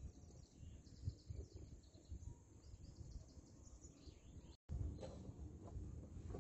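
Quiet outdoor ambience: faint, scattered bird chirps over a low, uneven rumble. The sound cuts out for an instant a little past four seconds in.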